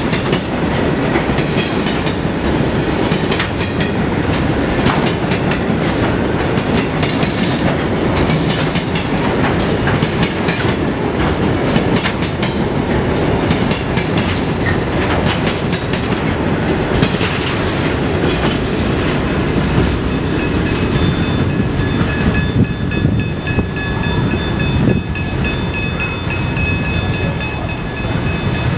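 Grain hopper wagons of a freight train rolling past at speed, their wheels clattering steadily over the rail joints. A thin, high ringing tone joins the rumble for the last several seconds as the end of the train goes by.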